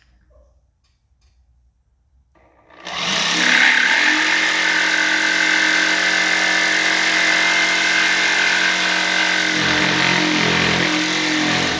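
A scrolling jigsaw (its blade can turn in the saw) starts up about three seconds in and runs steadily, cutting.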